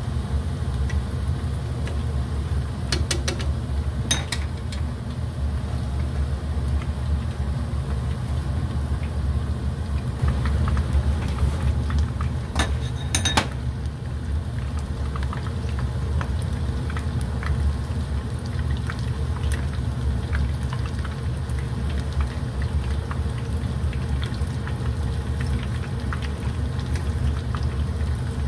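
A steady low hum, with faint scattered crackling and a few sharp clicks about 3 and 4 seconds in and again around 12 to 13 seconds in.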